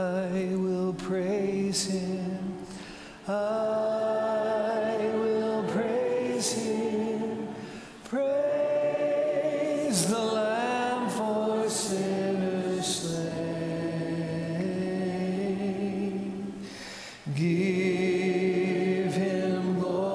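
A congregation and worship team singing a slow worship song together in long phrases of held notes, with brief breaks between phrases.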